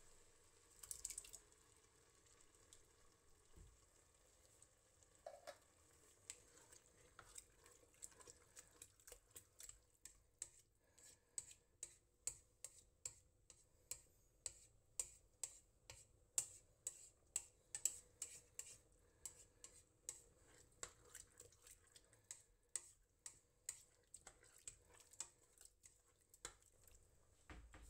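Thick tomato-chili salsa being stirred with a silicone spoon in a stainless steel pot: faint, short knocks and scrapes, about two a second, starting about six seconds in.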